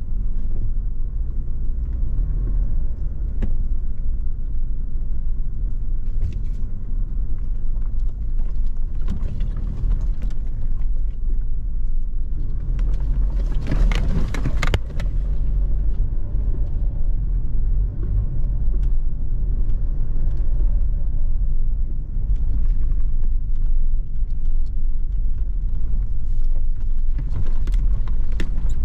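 A car driving, with a steady low rumble of engine and tyres and scattered knocks and rattles. A louder rushing noise lasts a second or two about halfway through.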